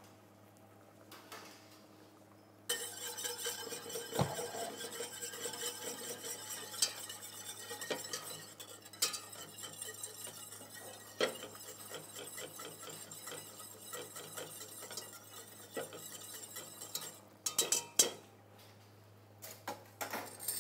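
Wire balloon whisk rattling and scraping against the sides of a stainless steel stockpot while whisking thin tomato sauce to mix in salt and ground white pepper. It starts about three seconds in, runs for roughly fourteen seconds, and ends with a few separate clinks and knocks of utensils.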